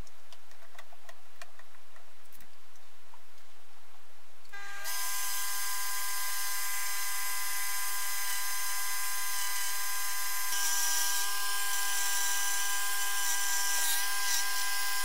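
A few light clicks, then a Proxxon rotary grinder mounted in a lathe toolpost starts about a third of the way in, its whine rising briefly before settling into a steady high whine. From about two-thirds in, a hiss joins the whine and its pitch wavers slightly as the pink grinding stone works the part spinning in the lathe chuck.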